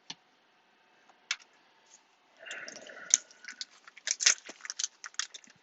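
Crackling and clicking of a trading-card pack and cards being handled, a few scattered clicks at first and then a quick run of crackles in the second half.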